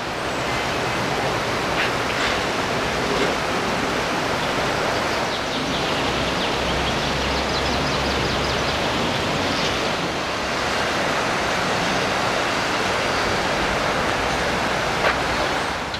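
Steady rushing of a shallow river running over rocks and small rapids, an even hiss without breaks.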